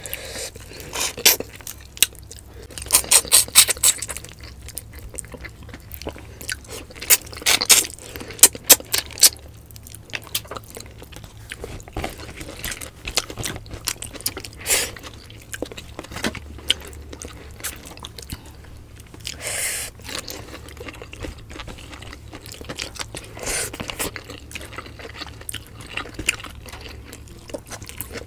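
Close-miked chewing and crunching of food eaten by hand. Clusters of sharp crunches come a few seconds in and again several seconds later, with softer chewing and scattered clicks between.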